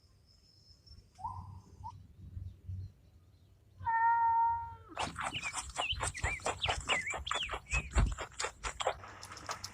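A cat meowing: a short rising mew about a second in, then one loud, long, steady meow about four seconds in. This is followed by a busy stretch of rapid clicks and high, curving squeaks.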